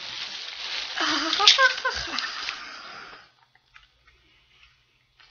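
Rustling and crinkling of a bundle of doll clothes and their wrapping being lifted and handled, with a brief voice sound about a second and a half in; the rustling stops about three seconds in.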